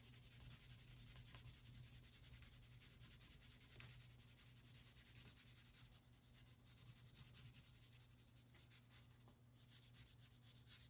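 Faint scratching of a crayon stroked back and forth on paper as a background is coloured in, over a low steady room hum.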